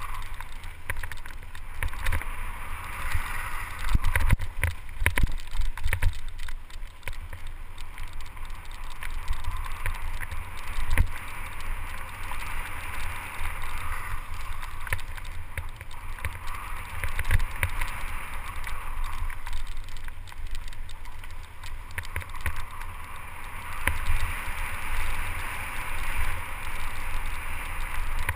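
Mountain bike descending a dirt singletrack. Tyres hiss and crunch over dry dirt and rocks, and the bike rattles with sharp knocks over bumps. A steady low rumble of wind on the microphone runs underneath.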